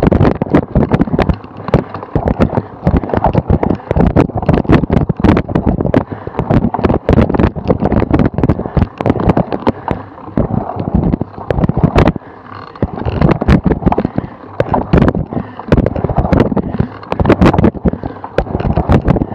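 Cyclocross bike ridden over bumpy, dew-wet grass: a dense, irregular rattling and knocking as the bike and its camera jolt over the uneven ground. It eases briefly about twelve seconds in.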